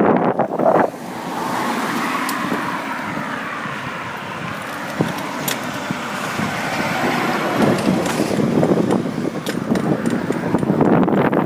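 A car passing on the road, its tyre and engine noise swelling and then slowly fading over several seconds. Wind buffets the microphone at the start and again near the end.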